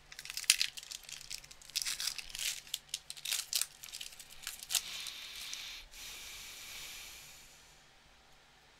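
A plastic hockey card pack wrapper being torn open, crinkling and tearing in quick irregular crackles for about five seconds. Then comes a smoother rustle that lasts a couple of seconds and fades away.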